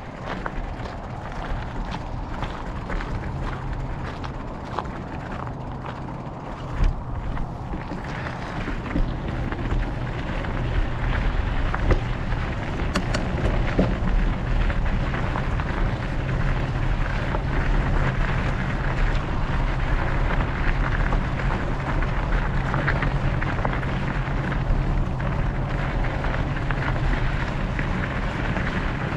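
Steady wind noise on the microphone of a mountain bike rider's camera, with the tyres rolling over a dirt and gravel trail. A few sharp knocks stand out, about seven seconds in and again around twelve seconds, and the low rumble gets louder from about ten seconds in.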